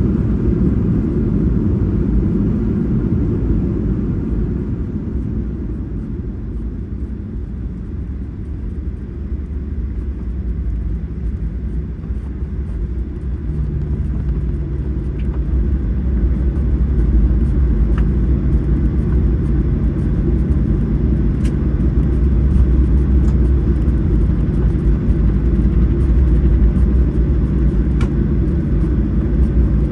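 Airliner cabin noise on the ground just after landing: a loud, steady low rumble of engines and airframe. The rumble dips and then builds again, a steady low hum joins about halfway through, and there are a few faint clicks.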